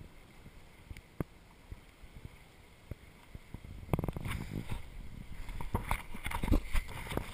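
Water lapping and gurgling against a small boat's hull, with a few isolated knocks. About four seconds in it grows louder, with a run of close knocks and thumps.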